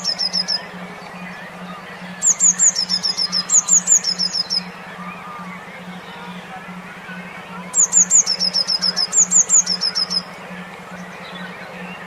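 Recorded songbird song: three bursts of rapid, high-pitched, downward-sweeping notes repeated in quick series, with pauses between the bursts. A steady low pulsing hum runs underneath.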